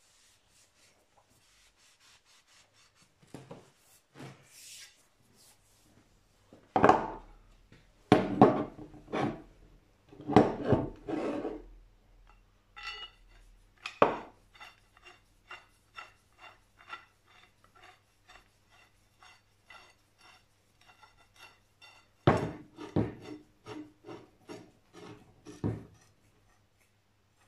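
Red Bessey pipe clamp head being fitted onto a metal pipe and slid along it: loud metal knocks and scrapes of the clamp on the pipe, with a run of light, ringing clicks, about two a second, in the middle.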